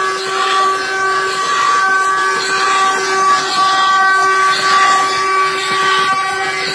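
Wooden axle of a Brazilian ox cart (carro de boi) singing as the cart rolls: a loud, sustained whistle-like squeal of wood turning against wood. It wavers and breaks off briefly now and then, over the rattle of the solid wooden wheels on the dirt road.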